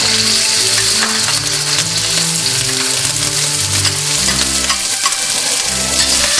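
Thinly sliced roast beef sizzling loudly in hot oil in a wok over a high gas flame, a steady dense hiss. Scattered clicks of the spatula against the wok as the meat is stirred.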